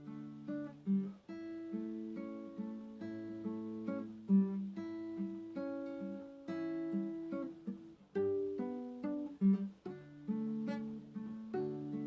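Slow acoustic guitar music, plucked notes and chords ringing out softly.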